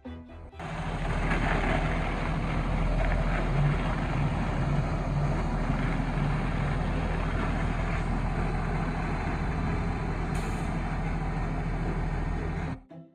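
Heavy diesel concrete truck engine running steadily at high revs with a low hum under a loud mechanical noise. It cuts in and out abruptly.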